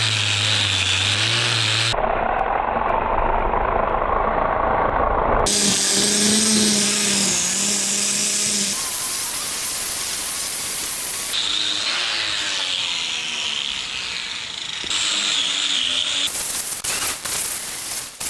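Power tools running in a series of short clips cut together, the sound changing abruptly every few seconds.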